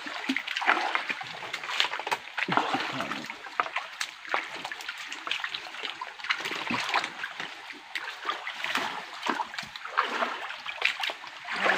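Shallow creek water splashing and sloshing irregularly, with many small splashes as hands and feet move through it among the rocks while searching for freshwater crabs.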